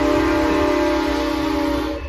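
Locomotive whistle sounding one long blast of several tones at once, over a low rumble, cutting off near the end.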